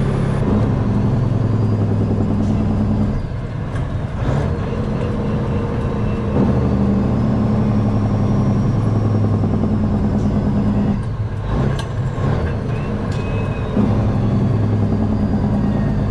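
Semi-truck diesel engine running under load, heard inside the cab. The engine note drops away briefly twice, a few seconds in and again around eleven seconds, as the driver shifts gears, with a few light clicks around the shifts.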